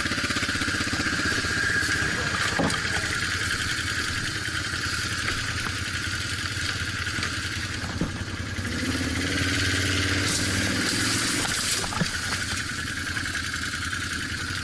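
Off-road vehicle's engine running at low speed, its note swelling for a couple of seconds past the middle, with a few sharp knocks.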